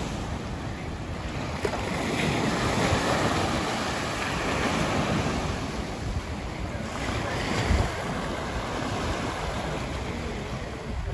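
Small waves breaking and washing up a sandy, pebbly beach in a steady swelling rush, with wind buffeting the microphone.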